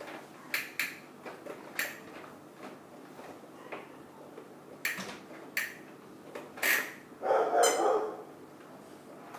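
A baby walker's plastic tray and toys being struck, making scattered sharp clicks and knocks, with a longer, louder noisy burst about three quarters of the way through.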